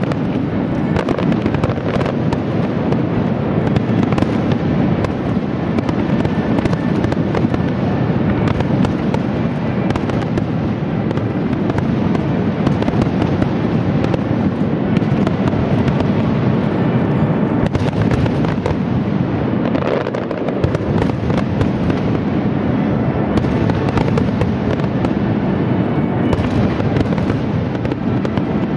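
A continuous barrage of aerial firework shells bursting in quick succession, the bangs running together without a pause.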